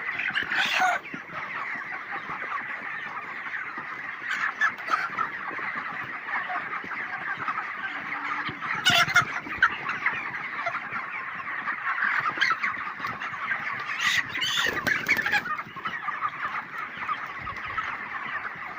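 A large flock of 32-day-old broiler chickens calling all together, a dense steady chatter of clucks and chirps. A few louder calls stand out about a second in, around nine seconds and again around fourteen to fifteen seconds.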